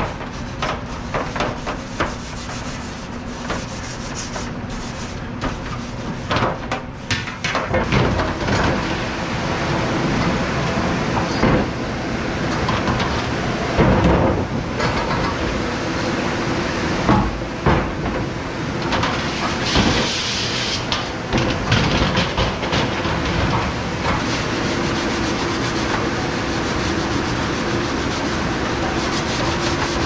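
A metal scrubber rasping over aluminium sheet pans, with scattered knocks and clanks of the pans and racks, over a steady drone of commercial dish-room machinery.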